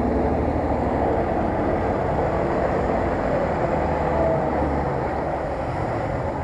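Engine of a lifted Jeep Cherokee off-roader running steadily as it drives past through mud.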